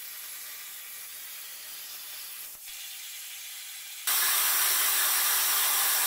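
CNC plasma cutter torch hissing steadily as it cuts steel plate. About four seconds in, as the cut ends, the sound steps up suddenly to a much louder, steady hiss of air, typical of the torch's post-flow air.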